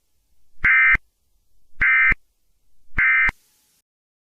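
Three short, loud electronic data bursts about a second apart, each about a third of a second long: the SAME digital end-of-message code that closes an emergency alert broadcast.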